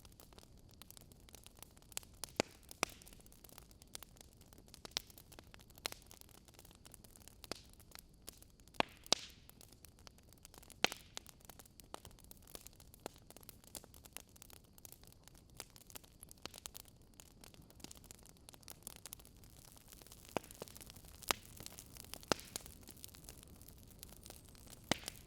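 Wood fire crackling: a low steady hiss of burning with irregular sharp pops and snaps from the logs, a few louder than the rest.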